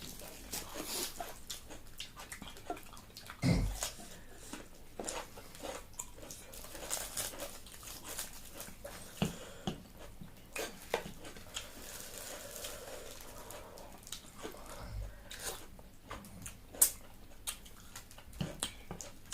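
Close-up eating sounds: irregular chewing, lip smacks and small clicks, with a low thump about three and a half seconds in and a sharper click near the end.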